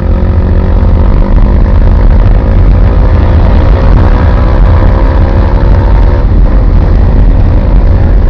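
Car engine and road noise heard inside the cabin while driving: a steady engine drone over a heavy low rumble.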